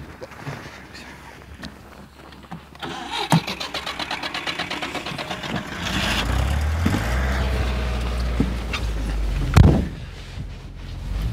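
Van engine cranked by the starter with a fast, even churning for about three seconds, then catching and idling with a low steady hum. Near the end the sliding side door shuts with a heavy thump.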